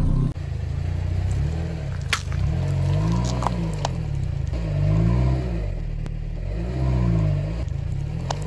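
Low car drone that swells and dips in pitch every couple of seconds, with a few faint crackles.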